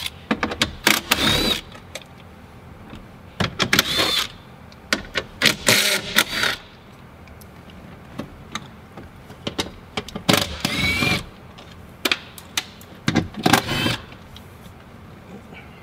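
Cordless drill-driver running in about five short bursts, its motor whine rising as it spins up, backing out screws that hold a van's sliding-door inner panel on.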